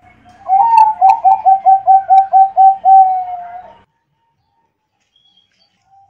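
Perkutut (zebra dove) of the Bangkok contest strain singing one loud coo phrase about half a second in: an opening note, a quick run of about eight short repeated notes, and a longer closing note, lasting about three seconds.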